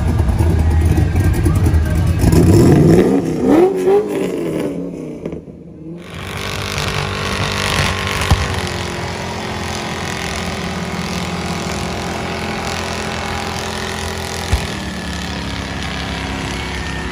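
A pickup truck's V8 engine revs up in a rising sweep. After a cut, a pickup's engine is held at steady high revs through a burnout, with the hiss of spinning tyres.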